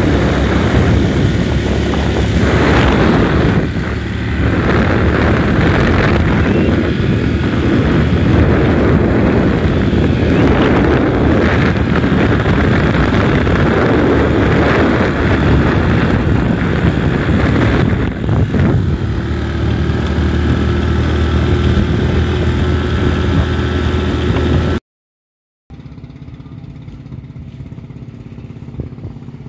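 Riding on a motorcycle: wind buffeting the microphone over the motorcycle engine running. About two-thirds of the way through the wind noise eases, leaving a steadier engine sound. After a brief dropout near the end, a much quieter outdoor background follows.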